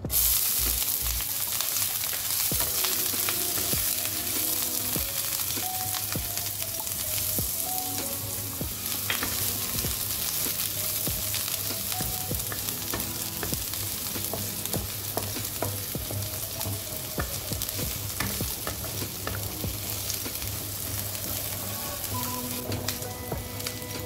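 Diced onion frying in hot oil in a wok, with a steady sizzle that starts suddenly as the onion goes in. A wooden spatula stirring the onion adds frequent light scrapes and taps against the pan.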